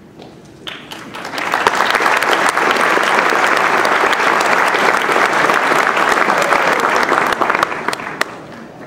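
Audience applauding, with individual claps audible; it swells about a second in, holds steady, then dies away near the end.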